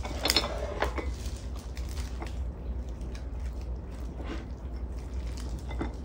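Chopsticks clicking and tapping against bowls and a metal pan as food is served, with a few sharp clicks in the first second and then scattered quieter taps, over a steady low hum.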